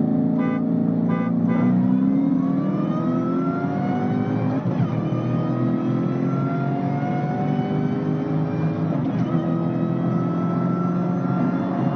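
A car engine at full throttle, its pitch climbing through the gears with an upshift about five seconds in and another about nine seconds in. A few short beeps sound near the start.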